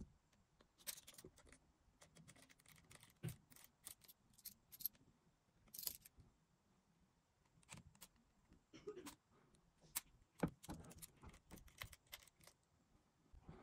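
Faint, scattered small clicks and ticks of a precision screwdriver being worked on the bottom screws of an iPhone 8, with light handling of the phone.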